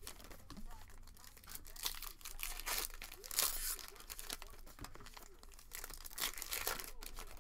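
Foil trading-card pack wrappers being torn open and crinkled by hand, in irregular bursts of ripping and crackling, loudest about halfway through.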